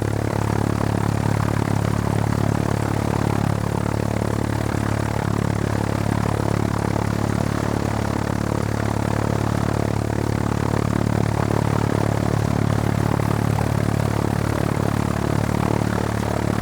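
Propeller aircraft engine idling steadily, a constant low drone that holds one pitch throughout.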